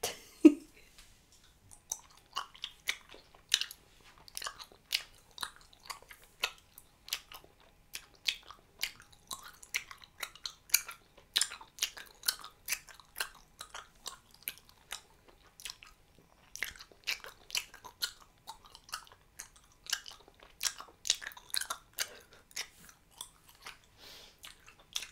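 Hubba Bubba bubble gum being chewed close to the microphone: irregular wet smacking clicks, a few a second, with a pause of about two seconds past the middle. One short louder sound comes just after the start.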